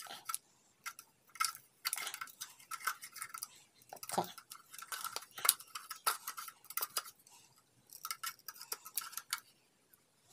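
Utility knife blade scraping and prying inside the opened plastic case of a small lead-acid battery, working its contents loose: irregular scrapes and clicks with short pauses.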